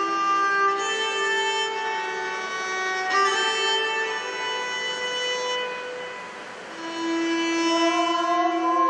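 Solo violin playing a slow melody in long held notes. It dips quieter about six seconds in and returns a second later.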